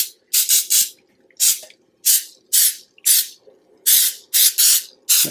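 Aerosol can of PAM baking spray fired in about a dozen short hissing spurts, roughly two a second, coating the inside of a metal bundt pan with nonstick spray.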